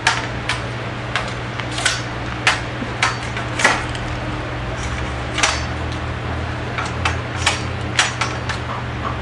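Sharp knocks and taps, irregularly spaced roughly every half second to a second, over a steady low hum.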